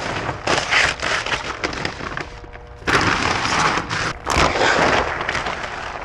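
Hands rummaging through dumpster trash: plastic bags and packaging crinkling and rustling, cardboard scraping, and loose dry pet-food kibble shifting and crunching underfoot and under the gloves. A short lull about halfway, then steady rustling again.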